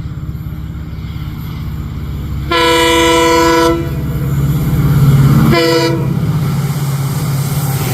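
Indian Railways diesel locomotive running with a low throbbing engine that grows louder toward the middle. Its air horn sounds one long blast about two and a half seconds in, then a short blast about two seconds later.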